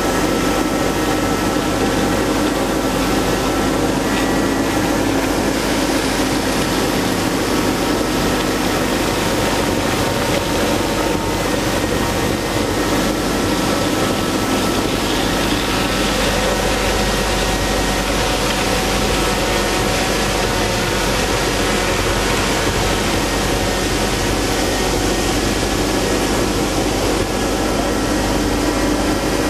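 Ice edger running steadily as a continuous mechanical drone with several steady tones, its blade cutting ice at deep cutting depth.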